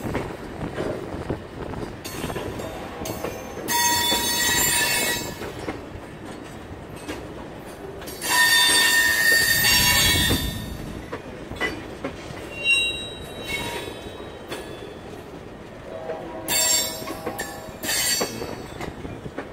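Freight train tank cars rolling past, their wheels rumbling on the rails with short clicks. High-pitched wheel squeal comes in three bursts, the loudest from about eight to eleven seconds in.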